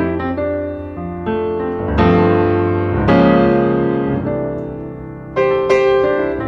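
Slow piano music: notes and chords struck about once a second, each left to ring and fade.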